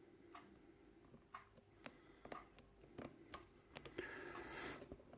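Faint, scattered ticks and clicks of a small hook pick and tension wrench working the pin stack inside a brass euro cylinder lock, with a brief rustle about four seconds in.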